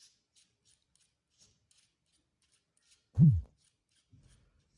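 Faint light clicks of a small plastic device being handled while its battery is fitted, then a little over three seconds in a single short, loud low thud whose pitch drops.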